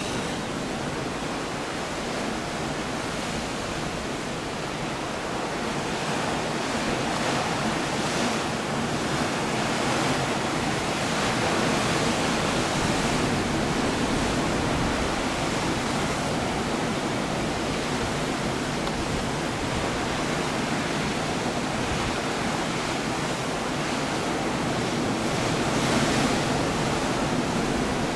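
Rough Pacific surf breaking and washing over coastal rocks: a steady rushing of water that swells louder around ten seconds in and again near the end. The sea is heavy with swell stirred up by a typhoon.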